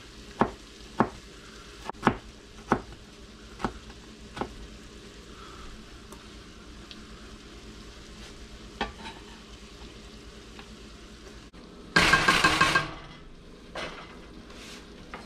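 Chef's knife chopping sweet peppers on a plastic cutting board: a run of sharp knocks in the first few seconds and one more later, over a steady sizzle of sausage and vegetables frying in the pot. Near the end, a loud scraping clatter of about a second as the pot is stirred with a wooden spoon.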